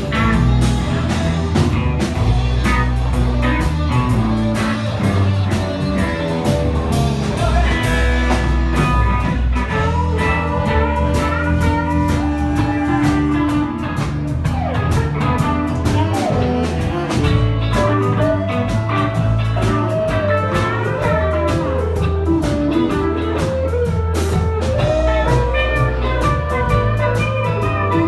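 Live band playing a blues jam on electric guitars and drum kit, with a steady bass line under it. A lead guitar plays bent, sliding notes through the second half.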